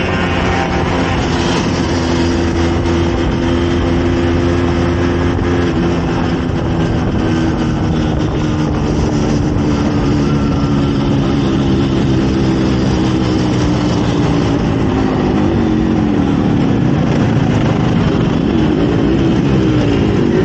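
Two-stroke engine of a Yamaha RX motorcycle running under way, over wind and road noise. The engine holds a steady pitch for the first few seconds, drops slowly through the middle as the revs fall, then rises again near the end.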